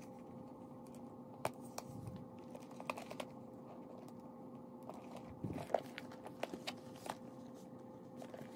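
Metal swivel clips on a bag strap clicking as they are fastened onto a clear vinyl crossbody bag, with scattered sharp light clicks and soft handling thuds. A steady low hum runs underneath.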